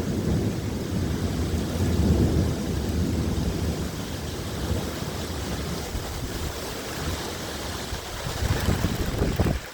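Thunderstorm wind and rain as a steady rushing noise, with a low rumble of thunder dying away over the first few seconds.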